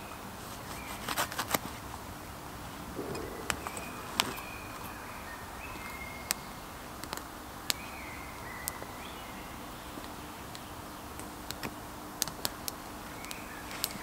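Small wood fire crackling in a hobo stove: scattered sharp pops and snaps at irregular intervals. Short high bird calls come in now and then over a steady background hiss.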